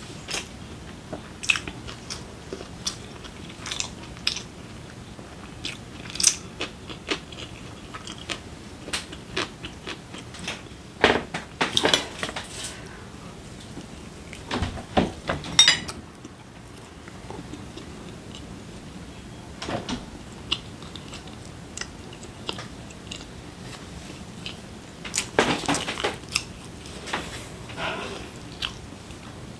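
Close-miked chewing and biting of food, with crisp crunches and clicks, including bites into a crisp ten-won bread pastry. There are louder clusters of crunching about eleven, fifteen and twenty-six seconds in.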